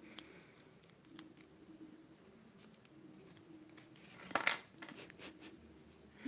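Hands handling a ribbon bow and small sewing tools: scattered faint ticks and clicks, with a short rustling scrape about four seconds in.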